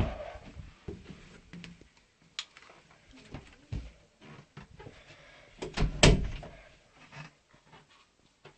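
Drawers and cupboard doors being opened and shut: scattered knocks and clicks, with a louder bang about six seconds in.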